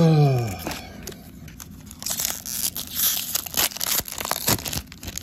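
Foil booster-pack wrapper crinkling and tearing open, a dense run of crackles from about two seconds in. It opens with a short, loud sound that falls in pitch.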